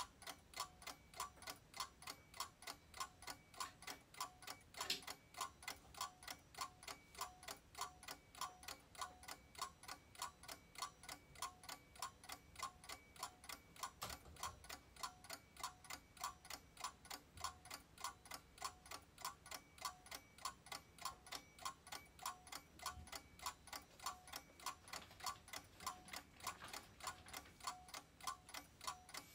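Quiet, steady, even ticking of a clock-like timer, several ticks a second, each tick with a light ring. There are two faint sharper clicks, about five seconds in and again near the middle.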